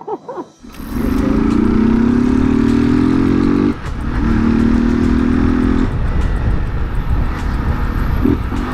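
Motorcycle engine accelerating from the rider's seat, its pitch rising through one gear, with a brief dip at a gear change about four seconds in. It pulls on in the next gear until the throttle closes about six seconds in, leaving wind rumble on the camera microphone.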